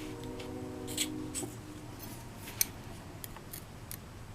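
Scattered small metallic clicks of tiny padlock parts and tools being handled while the lock cylinder is taken apart to remove its top pins. A faint steady hum sounds for the first second and a half.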